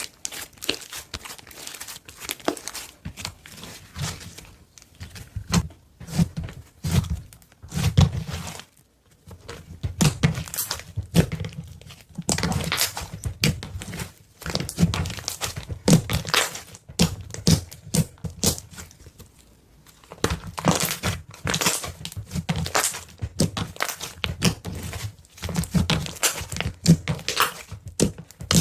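Slime being squeezed and poked by hand: irregular crackling pops and soft thuds, pausing briefly twice.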